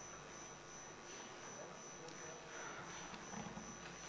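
Faint room tone of a large hall: a steady hum with a thin high whine over it, and a few soft clicks and faint indistinct murmurs a couple of seconds in.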